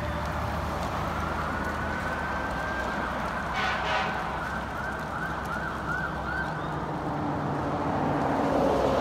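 Electronic sirens of an approaching fire engine and ambulance: a wail rising to a high held note, then switching to a fast yelp of quick chirps about five seconds in, with a lower siren tone coming in near the end. Steady traffic rumble underneath.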